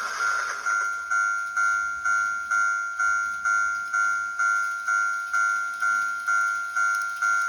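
Japanese-style level-crossing warning bell on a model railway, an electronic ding repeating evenly about twice a second. The noise of a passing model train fades out in the first second.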